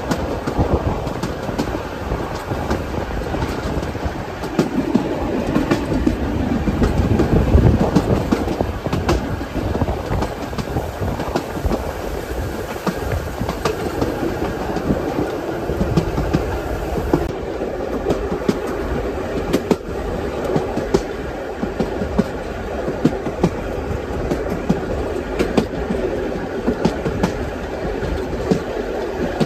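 Passenger coaches of a steam-hauled train rolling along the track, the wheels clicking over rail joints over a steady rumble, heard from the open end platform of a coach.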